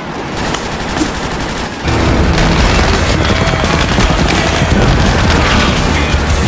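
Rapid gunfire, many shots in quick succession, growing much louder and heavier about two seconds in.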